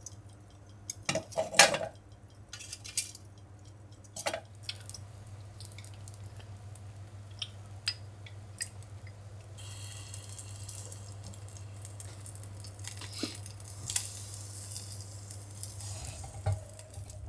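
Metal tongs clinking and knocking lumps of glowing charcoal in the first few seconds. Then, from about ten seconds in, a steady sizzle of yellowtail collar grilling over charcoal on a tabletop shichirin. A low steady hum runs underneath.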